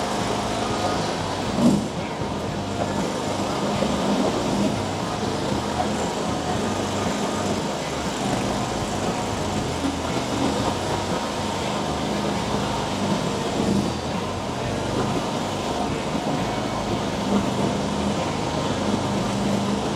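Mini skid steer loader engine running steadily during a work demonstration, with a single sharp knock about two seconds in.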